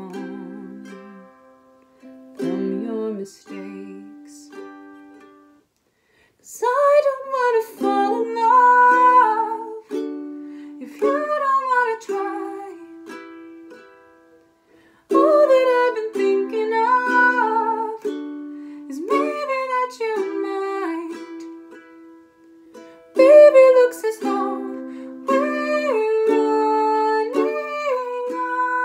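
Ukulele strummed chords with a woman singing over them. The first few seconds are sparse strums that die away into a brief pause, and the singing comes in at about six seconds in phrases over steady strumming.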